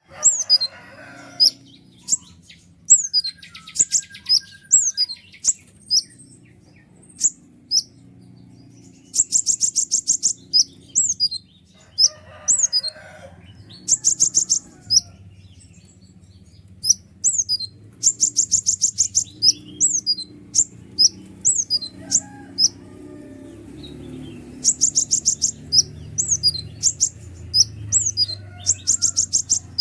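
A 'kolibri ninja' sunbird singing: a busy string of sharp, high, downward-slurred notes, broken every few seconds by bursts of rapid high trills.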